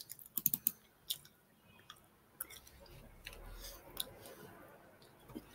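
Chewing a crisp apple and dry nuts close to the microphone: a quick run of crunching clicks in the first second, then fainter chewing.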